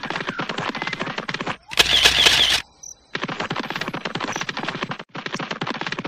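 Battery-powered toy steam locomotive running on plastic track: a fast, even clicking rattle. About two seconds in it is broken by a short, loud hiss with a wavering high tone, then the rattle resumes after a brief pause.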